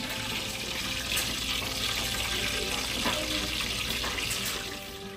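Spinach fritters (gota) deep-frying in a pan of hot oil: a steady sizzling hiss.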